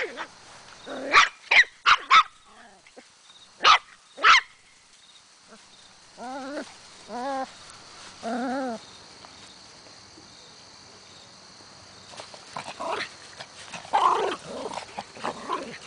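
Small dogs yapping in play-fighting: a quick run of sharp, high yaps about a second in, two more just before four seconds, then a few short pitched cries between about six and nine seconds, and more scattered yaps near the end.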